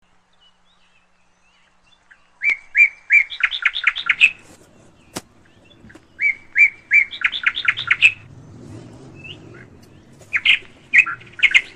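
A bird chirping in three short runs of quick high chirps, each run speeding up as it goes.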